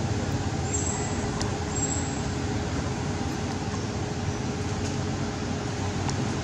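Steady low outdoor rumble with a faint steady hum, and two brief high chirps about one and two seconds in.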